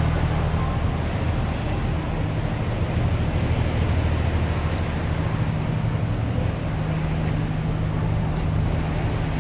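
A boat's engine running with a steady low drone at slow speed, under the wash of seawater splashing around the hull.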